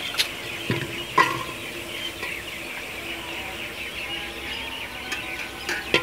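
Steel ladle clinking and scraping against an aluminium pot and a plate as fried onions are scooped out, a few sharp knocks about a second apart near the start and again near the end, over continuous background bird chirping.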